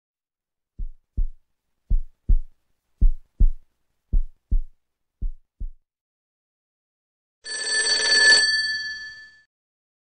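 Heartbeat sound effect: five double thumps, lub-dub, about one beat a second. About 7.5 s in comes a louder bright metallic ring with a rushing hiss that fades out within two seconds.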